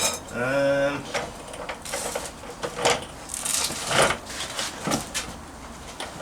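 A few separate knocks and scrapes of metal parts being handled and set down, spaced a second or so apart.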